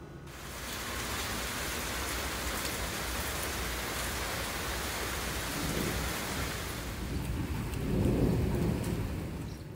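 Steady rain falling, starting just after a cut from the quieter kitchen sounds. A low rumble swells twice, loudest about eight seconds in.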